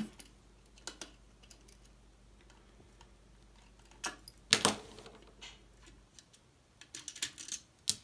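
Small screwdriver backing two mounting screws out of a plastic switch housing. Mostly quiet, with scattered light clicks, a sharper click about halfway through, and a quick run of small clicks and taps near the end.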